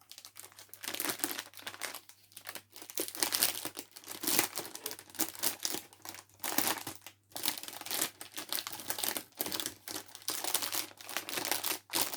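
Plastic packaging bag crinkling and rustling in irregular bursts as a kit's pieces are pulled out of it.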